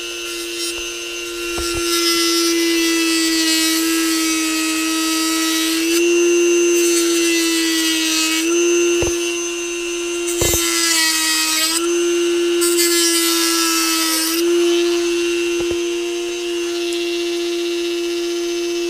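Dremel rotary tool with a cut-off wheel running at a steady high whine, notching a piece of PVC pipe. In stretches the wheel bites into the plastic with a hissing rasp and the motor's pitch sags slightly under the load.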